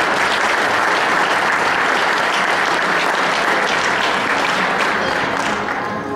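Audience applauding steadily for a couple being presented, the clapping dying down near the end as background music comes back up.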